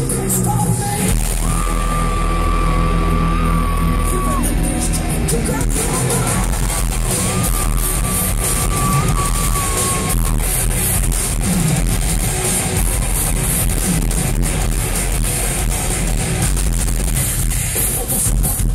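A heavy metal band playing live and loud: drums and guitars, with a long held high note twice in the first half, then dense, fast drum hits under the full band.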